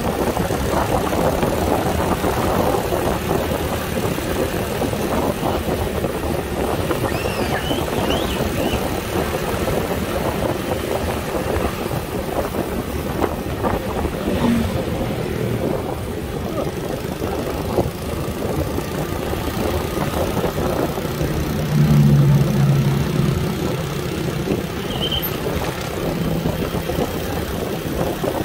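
Small underbone motorcycles riding in a group: a steady mix of engine sound and rushing road and wind noise. About 22 seconds in, a louder, deeper engine note swells for a second or two.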